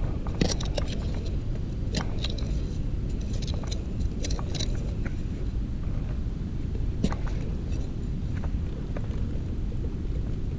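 Scattered short knocks, scrapes and rustles over a steady low rumble.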